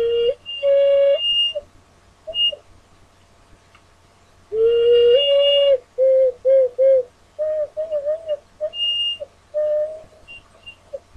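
Six-hole ocarina played in short phrases, tried out while it is being retuned with tape: a few held notes, a pause of about two seconds, then a longer note that steps up in pitch followed by a run of short, quick notes.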